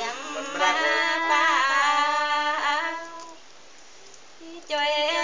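Women singing a folk song in long held, gliding notes. The singing breaks off about three seconds in and starts again after a pause of about a second and a half.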